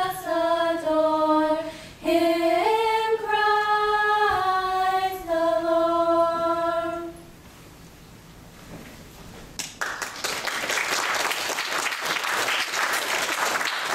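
A small group of girls singing a slow melody together in unison, unaccompanied, ending on a held note about seven seconds in. After a short pause, the audience breaks into applause about ten seconds in.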